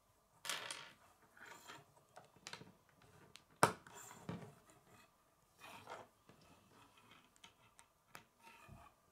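Plastic K'nex rods and connectors being handled and clicked together on a wooden tabletop: a string of irregular clicks and rustles, the sharpest click about three and a half seconds in.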